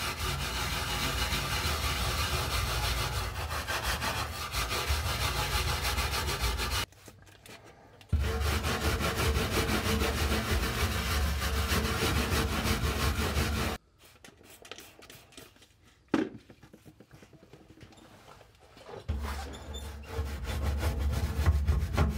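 Stiff brush scrubbing degreaser over the textured undercoating of a car's underbody in quick back-and-forth strokes. The scrubbing breaks off briefly about seven seconds in and for several seconds after the middle, where there is a single knock, then starts again.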